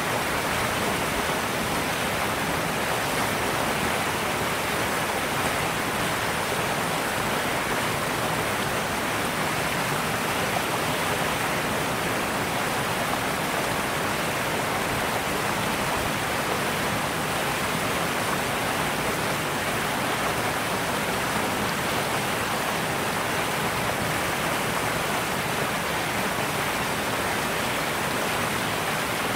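A steady, even rushing noise that does not change, with no distinct knocks, calls or other events standing out.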